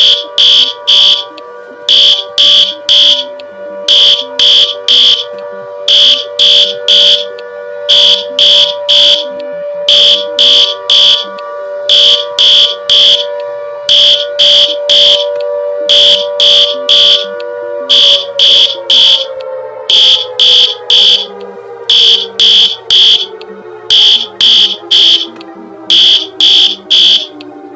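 Electronic emergency alert alarm: clusters of shrill, high beeps repeating about every two seconds, over a steady low two-note synthesized drone that slowly slides down in pitch during the last third.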